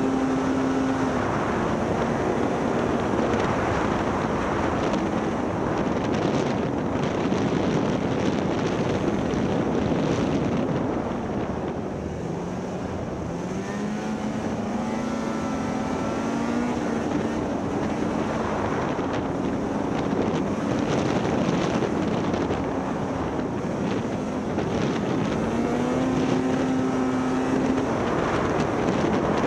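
Snowmobile engine running steadily at a standstill, then revving with a rising, wavering pitch about halfway through as the sled pulls away and picks up speed to around 28 mph.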